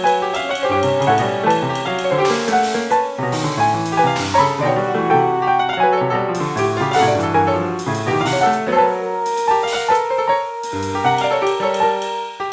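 Piano playing free jazz, with dense, overlapping notes across the low and middle registers.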